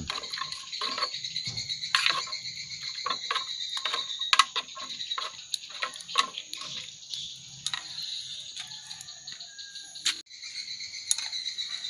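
Insects, crickets by their sound, chirping steadily, with scattered sharp clicks and knocks over them as a pot boils over a crackling wood fire and is stirred with a stick.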